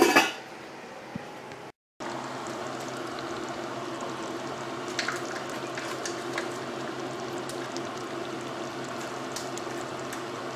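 Pot of arroz caldo (rice porridge) simmering: a steady bubbling hiss with a few small pops. It opens with a brief loud clatter, and the sound cuts out for a moment about two seconds in.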